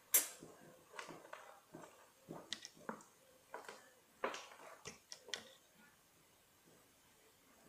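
Thin plastic water bottle being handled and opened: a run of irregular crinkles and clicks, the sharpest right at the start, as it is gripped and the cap is twisted. About six seconds in the clicks stop and it goes quiet while the bottle is tipped up to drink.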